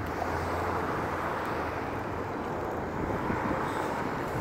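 Steady city traffic noise, with a low engine hum that is strongest through the first half.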